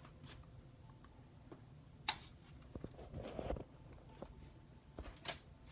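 Quiet cabin with a low steady hum, one sharp click about two seconds in and two lighter clicks near the end, with some brief handling rustle in between.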